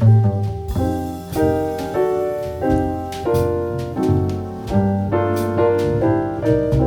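Instrumental Christmas music: piano chords struck at a steady pulse over a bass line, in a light jazz style.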